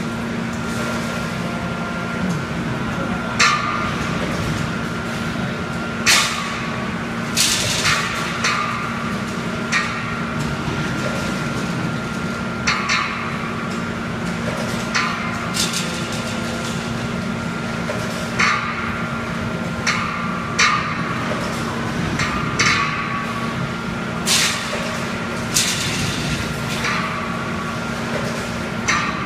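Automatic fence panel mesh welding and bending machine at work: a steady hum with sharp metallic clanks every one to three seconds as the machine cycles through the wire mesh.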